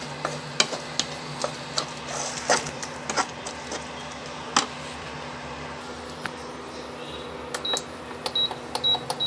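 Spatula stirring thick masala in a nonstick pan, making scattered soft clicks and knocks, over a low steady hum. Near the end come four short, high electronic beeps.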